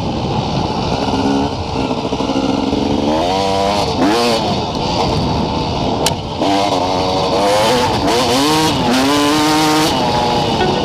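Motorcycle engine running under throttle while riding. Its pitch climbs, drops sharply about four seconds in, then climbs again, as the rider accelerates and lets off.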